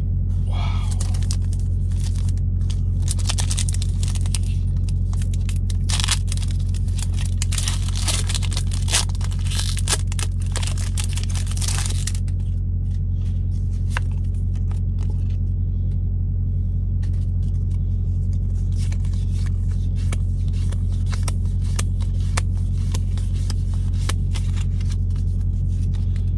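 Pokémon booster packs and trading cards being handled: foil wrappers crinkling and cards sliding against each other, dense for the first dozen seconds and sparser after. Underneath runs a steady low engine rumble.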